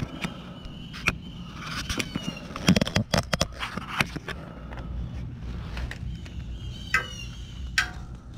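Scattered clicks, knocks and clatter of hands handling tools and shifting the camera under the truck, the loudest knocks about three seconds in, with a few faint high chirps.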